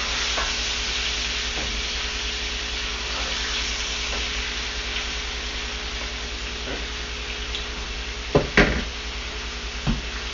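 Flour-dredged hamburger steaks frying in a skillet with a steady sizzle. Near the end come a few sharp clicks of the turning utensil against the pan.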